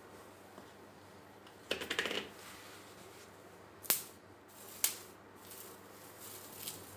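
Crisp, microwave-dried fenugreek leaves (kasuri methi) crackling briefly as they are handled about two seconds in, followed by two sharp clicks about a second apart.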